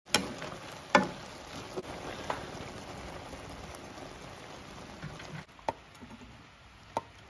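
Egg and tomato sizzling in a non-stick wok as a wooden spatula stirs them, knocking against the pan a few times. The sizzle drops away about five and a half seconds in, and two more spatula knocks follow as the mixture is scooped out of the wok.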